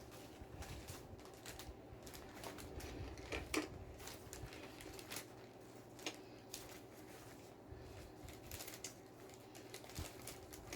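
Faint, irregular crisp clicks and crackles of someone chewing crunchy taco food up close, over a steady low hum.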